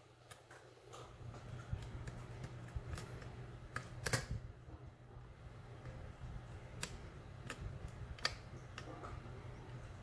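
Small, irregular metallic clicks and light scraping from a hook pick working the pin stack of a Silca lock cylinder under tension, the clicking of pins being lifted and set; the sharpest click comes about four seconds in.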